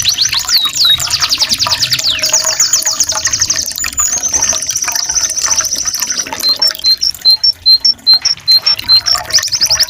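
Canary song. Fast rolls of falling notes give way to rapid high trills. From about two-thirds of the way in come evenly spaced chirps alternating high and low, about two a second, and a fast roll starts again near the end. A faint trickle of water lies underneath.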